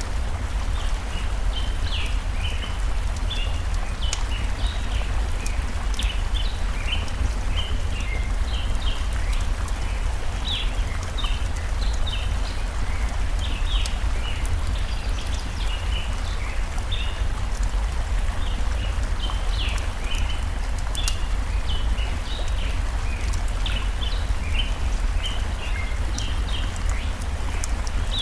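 Steady rushing of a forest stream with a deep low rumble under it. Many short, high bird chirps come throughout, with occasional sharp crackles from a campfire.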